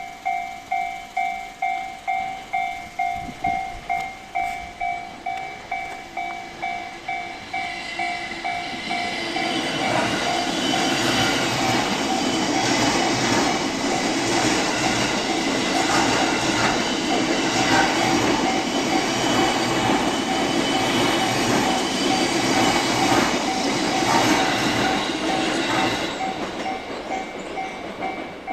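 A Japanese level-crossing warning bell rings in a steady repeating electronic ding. About nine seconds in, a train passes over the crossing for roughly seventeen seconds, wheels clacking over the rail joints and drowning out the bell, which is heard again near the end.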